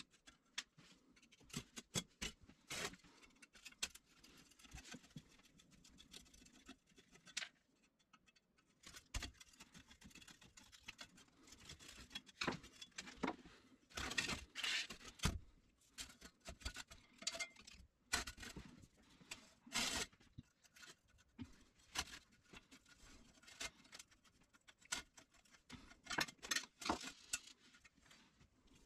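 Hands dismantling an old car battery charger's rusty sheet-metal case: irregular clicks, taps and short scrapes of metal parts and tools against the case and the wooden bench, with a denser run of louder clatters about halfway through.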